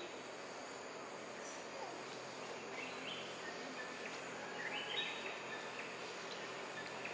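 Outdoor ambience of a steady insect drone, with a bird's short rising call heard twice, about three and five seconds in.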